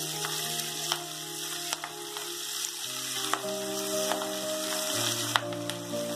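Red chillies and curry leaves sizzling fiercely in hot sesame oil in a steel kadai, stirred with a metal spoon that gives a few sharp clicks against the pan. Soft background music plays underneath.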